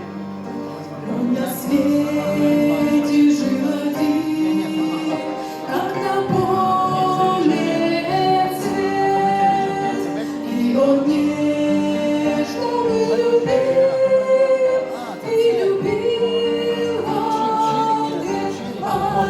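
A Christian wedding song: a singing voice carries a slow melody of long held notes over instrumental accompaniment.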